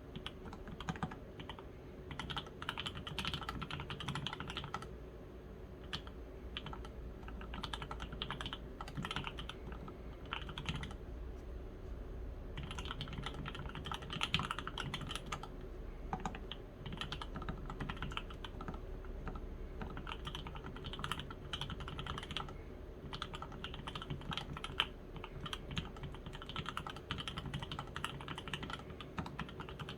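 Evelyn ergonomic custom mechanical keyboard being typed on with lubed H1 switches, lubed stabilisers and Olivia Dark keycaps in an anodized aluminium case: fast runs of keystrokes broken by a few short pauses.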